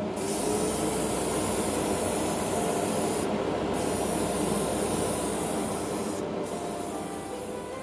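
Airbrush spraying heavily thinned rust paint, a steady hiss that starts suddenly. The hiss thins briefly twice, about three and a half and six seconds in.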